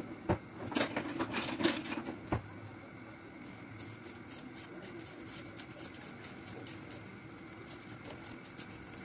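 A spatula knocking and scraping against a stainless steel pot as spaghetti is pushed down into the water, sharp clicks for the first two seconds or so. After that, a steady faint hiss with small ticks as the pasta is stirred in the water.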